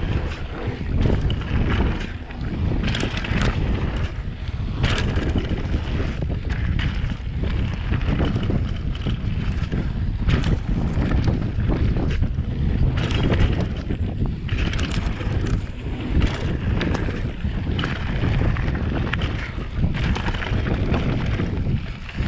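Wind buffeting the microphone and tyres rolling over a gravel trail as a mountain bike rides downhill, with frequent knocks and rattles from the bike going over bumps.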